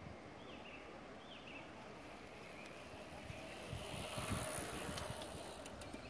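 Wind buffeting the microphone over an open rural landscape, with two short chirps from a bird about half a second and a second and a half in. A faint hiss swells about four seconds in and then dies back.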